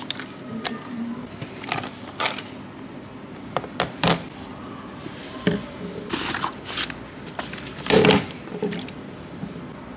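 Things being put down and handled on a wooden table: scattered knocks, rustles and scrapes from a pencil case, a plastic water bottle, papers and a laptop. The loudest is a single thump about eight seconds in.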